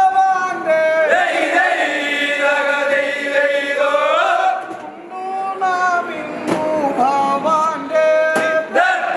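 Group of men singing a prayer song of blessing in unison, with long held notes that bend in pitch. The singing dips briefly about halfway through, then resumes. This song marks the close of the feast ceremony.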